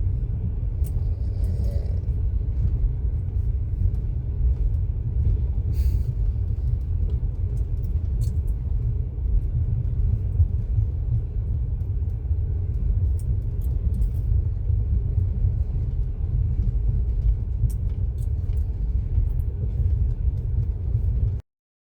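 Steady low rumble of a moving vehicle heard from inside, with a few faint clicks.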